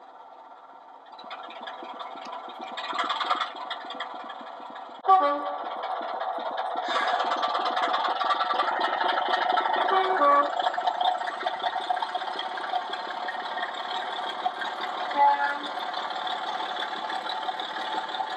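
Sutton's Locomotive Workshop OO gauge Class 24's DCC sound decoder playing its diesel engine sound through the model's small speaker. It runs quietly at first, jumps louder about five seconds in with a brief pitched note, and grows fuller from about seven seconds as the locomotive moves off. Short pitched notes recur around ten and fifteen seconds.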